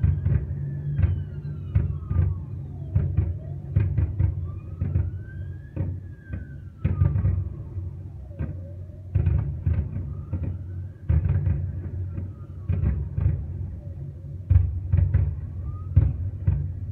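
Fireworks display: a rapid series of bangs and booms over a deep rumble, with whistling fireworks whose pitch rises and then falls several times.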